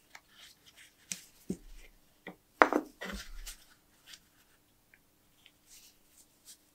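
Gloved hands handling and pressing a piece of damp leather around a metal form on a wooden workbench: scattered soft rustles and clicks, with a louder knock about two and a half seconds in.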